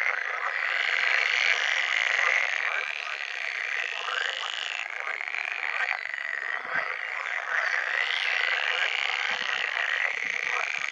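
Chorus of pool frogs calling in the breeding season, many overlapping calls running on without a break.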